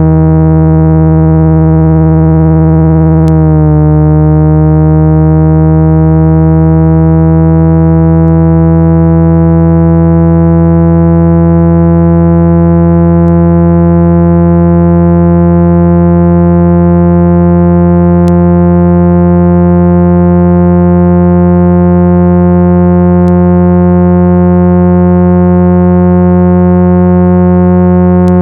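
Loud, steady synthesized low tones, made to vibrate water and dust out of a phone speaker. About three seconds in there is a faint click, after which the higher tones slowly glide upward in pitch.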